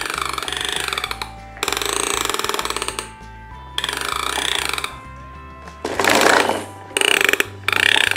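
Fisher-Price Spin & Spill toy cement truck rolled along, its wheel clicker mechanism giving a rapid ratcheting clatter in bursts of about a second, one push after another with short pauses between, the loudest a little past the middle.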